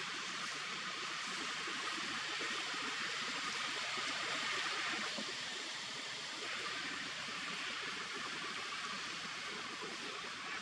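Steady outdoor background hiss, even and unbroken, with no distinct events or animal calls.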